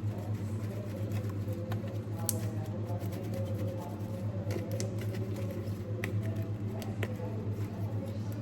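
Homemade slime being kneaded and stretched by hand, giving scattered small clicks and pops, over a steady low hum.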